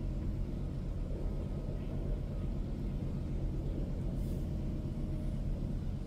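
Steady low rumble with no bird calls.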